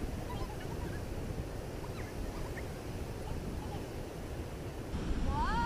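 Steady rushing rumble of wind and ocean surf, with a few faint chirps scattered through it. About five seconds in, a short rising cry cuts in over it.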